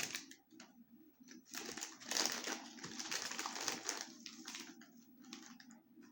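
Crunching and chewing a fried pork rind: crisp crackling, densest from about one and a half to four seconds in.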